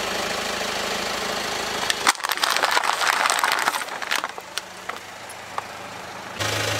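Car engine running with a steady hum, then about two seconds in a tyre rolls over plastic cups filled with water beads: a sharp crack and a burst of crackling and snapping as the cups split, thinning out to a few scattered ticks. A louder engine hum comes in near the end.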